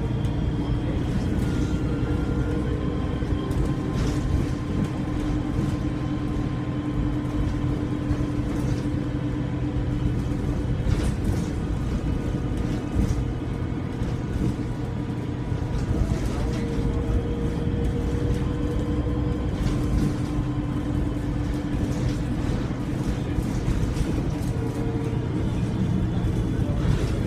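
Alexander Dennis Enviro300 bus's diesel engine running under way: a steady low rumble with the turbocharger's whistle over it, a few steady tones that come and go. The turbo is unusually loud for a Euro 5 E300.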